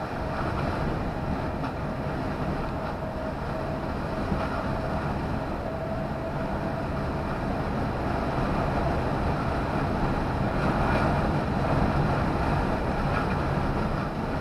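Steady engine and road noise heard from inside a lorry's cab while it drives at speed. A faint steady whine sits over it in the first half.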